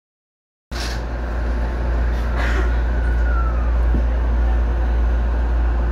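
Running noise of a JR Kawagoe Line electric commuter train moving off slowly, heard inside the driver's cab: a steady low rumble that starts under a second in.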